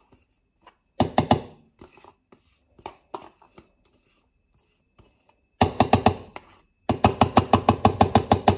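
Yogurt being knocked out of its pot into a blender, in quick runs of knocks about seven a second: a short burst about a second in, then a longer run from past the middle to the end.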